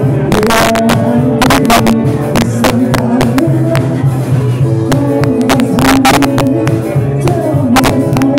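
Live rock band playing loudly, with electric guitars over a steady drum beat and no singing.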